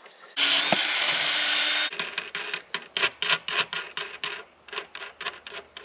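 Cordless drill running for about a second and a half, boring a bolt hole into the wooden gate post, followed by a quick run of rasping strokes on wood, about four a second.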